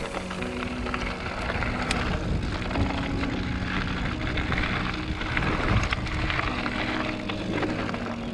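Mountain bike rolling down a gravel singletrack: tyres crunching over loose gravel, the bike rattling over small bumps, and wind on the microphone.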